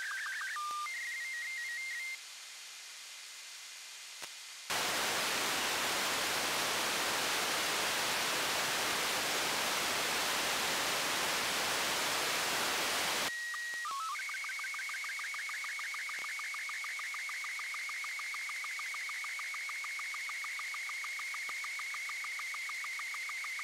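Slow-scan television (SSTV) signal from a FleetSatcom military satellite, heard through an SDR receiver in single-sideband: warbling scan tones between about 1 and 2.3 kHz with regular sync beeps, then a short stepped-tone header. About 5 s in the signal drops out and loud, even radio hiss takes over for about 8 s. Then a new transmission starts with header tones and settles into the steady, rhythmic warble and beeps of a fresh image being scanned.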